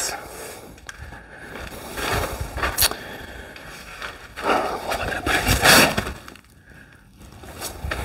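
Shuffling footsteps and rustling on a cloth floor cover, with a single sharp click about three seconds in.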